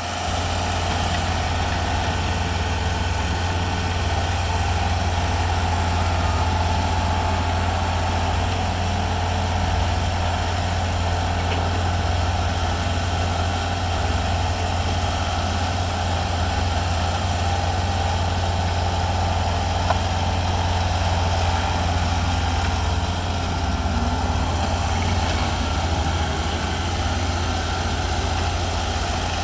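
Heavy equipment engines running steadily in a sand-screening operation, a constant low hum with a steady higher drone above it.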